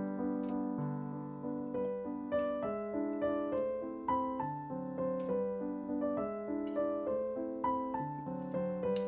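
Background piano music, single notes and chords struck in a steady, unhurried rhythm, each note fading before the next.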